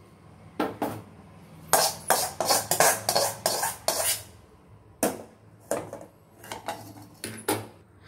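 A metal perforated ladle scraping and clattering against an aluminium kadai as roasted dal, chillies and curry leaves are scooped out. There is a dense run of scrapes and knocks for a couple of seconds, then a few separate metal knocks as the empty pan and ladle are handled.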